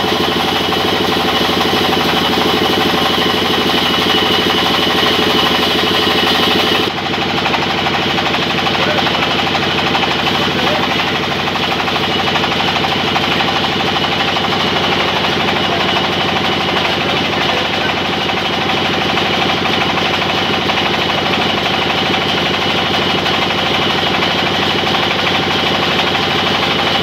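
Sawmill band saw machinery running steadily, belt-driven, with a rapid even pulsing and a steady whine. About seven seconds in, the high hiss drops off abruptly and the running goes on slightly quieter.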